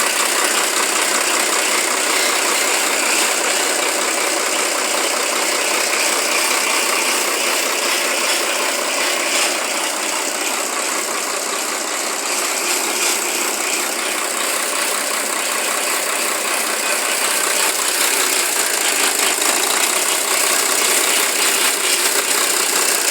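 Compactor truck's diesel engine running steadily.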